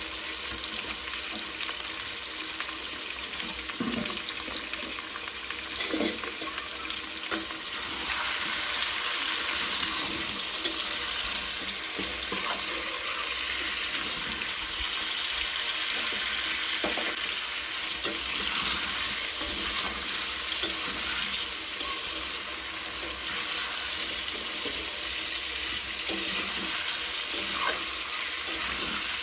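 Food sizzling as it fries in hot oil in a pan while being stirred, with sharp clicks of the spoon or spatula against the pan every few seconds. The sizzle grows louder about eight seconds in.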